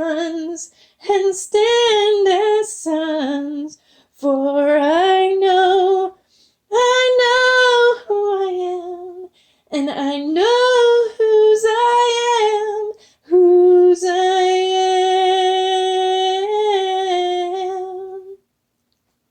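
A woman singing solo with no accompaniment, in several short phrases with brief pauses between them. The last phrase is one long held note, with a small waver near its end, that stops about a second before the end.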